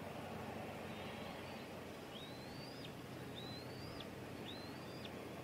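A bird giving four thin whistled calls, starting about two seconds in; each call rises and then drops off sharply. Under them runs a steady outdoor hiss with a faint low hum.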